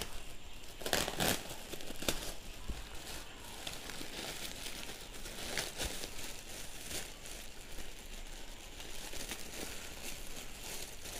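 Clear plastic packaging bag crinkling and rustling as it is pulled off a bunch of artificial plastic flowers, with louder crackles about one and two seconds in.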